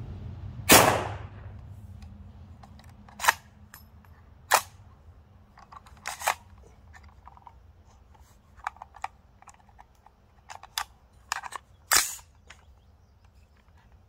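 A single shot from a .450 Bushmaster AR-style rifle about a second in, with a ringing echo after it, firing a light Lil'Gun powder load behind a 500-grain bullet that is too weak to cycle the action. It is followed by a string of sharp metallic clicks and clacks of the rifle's action being handled, the loudest near the end.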